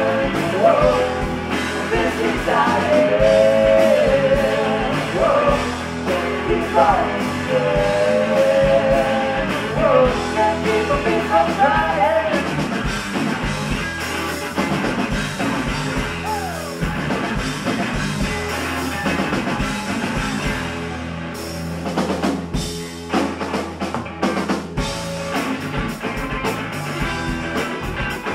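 Live rock band playing, with guitars, bass and drum kit. A woman sings the lead for about the first twelve seconds, and the band then plays on without vocals. Later the band plays a run of sharp, stop-start hits.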